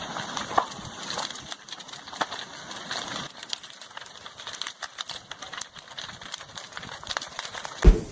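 Timber of a house crackling, popping and snapping as lava burns through it: many sharp cracks over a steady hiss, with one heavy thump just before the end.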